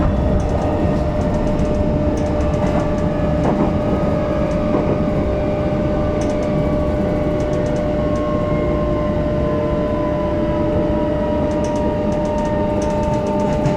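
Interior running noise of a JR E129 series electric train's motor car, with a steady whine and, from about eight seconds in, a second tone from its Toyo IGBT-VVVF inverter and traction motors that slowly falls in pitch as the train slows.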